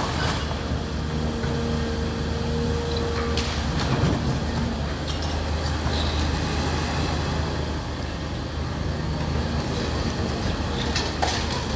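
Excavator's engine running steadily with a low drone and a steady whine, with a few scattered knocks and clanks.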